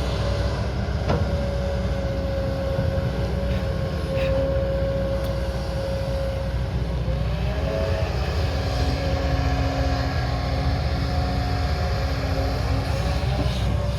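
Diesel engine of a heavy earthmoving machine such as an excavator running steadily under a continuous low rumble, with a steady whine that dips and rises briefly about halfway through.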